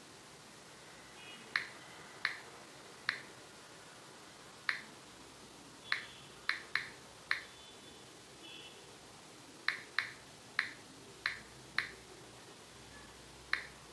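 A series of sharp single clicks, about fourteen at irregular intervals, some coming in quick pairs and threes.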